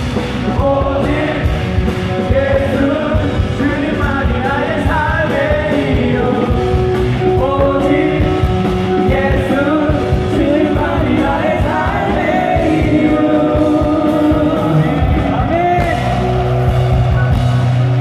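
Contemporary Christian worship song: singing over amplified band accompaniment, with a strong low held note in the last couple of seconds.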